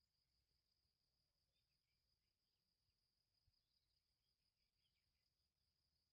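Near silence, with a very faint steady high insect trill and scattered small chirps under it.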